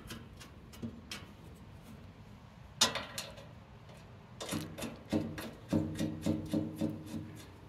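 Bolts being threaded by hand into a mini excavator's sheet-metal floorboard: small scattered clicks, then from about four and a half seconds a quick run of metallic clicks, about four a second, each with a short ring from the panel.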